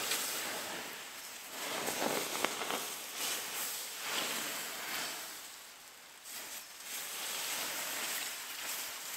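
Water poured from a bucket onto a campfire's hot ashes to douse it, splashing and steaming on the embers, with a brief lull about six seconds in before the pouring picks up again.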